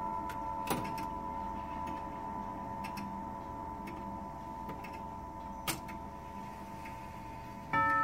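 Tubular chime bells of a 1978 Ridgeway limited edition grandfather clock ringing on and slowly fading, with a few sharp clicks, while the minute hand is turned by hand. Near the end a tube is struck and the chime starts again as the hand reaches the hour.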